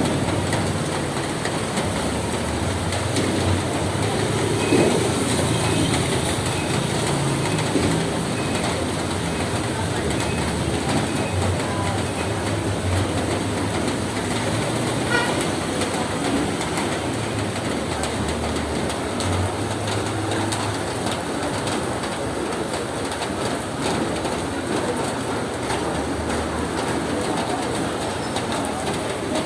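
Steady rain falling on a roof, a continuous even patter. A bird calls faintly a few times in the first third.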